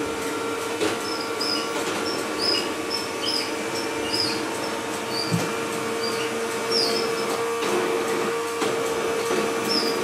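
Klarstein XR210 robot vacuum cleaner running with a steady motor hum as it manoeuvres toward its charging dock, with short high squeaks coming and going.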